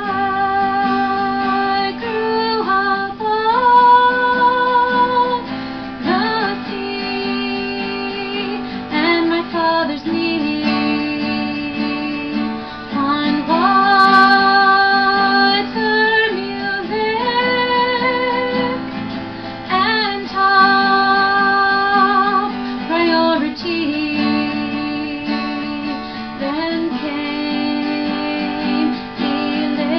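A woman sings a slow song, holding long notes with a slight vibrato, to her own strummed steel-string acoustic guitar.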